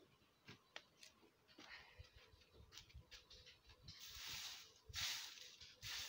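Dry bean straw and husks rustling and crackling as they are gathered by hand. Scattered faint clicks at first, then louder rustling swishes about four and five seconds in.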